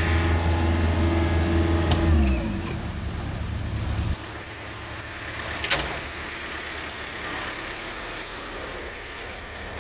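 Mini excavator's diesel engine running steadily, then slowing, its pitch falling, about two seconds in. A little past halfway the sound drops abruptly to a much quieter background, with a single sharp click shortly after.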